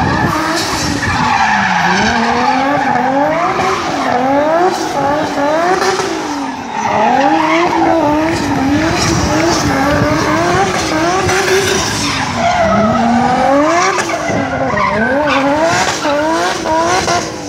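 Drift car engine revved up and down again and again, in quick rising surges, as the car slides with its tyres skidding and squealing.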